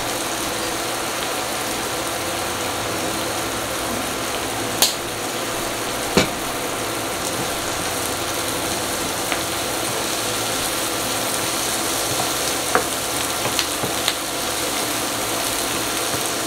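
Chopped onions frying in butter in a pan, a steady sizzle, stirred and scraped with a wooden spoon. A handful of sharp knocks sound over the sizzle from about five seconds in.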